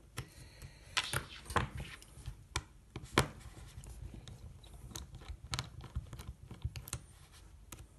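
Irregular small clicks, taps and scrapes of a precision screwdriver and tweezers on a Samsung Galaxy S3's rear housing as its small screws are backed out. One sharper click comes a little after three seconds.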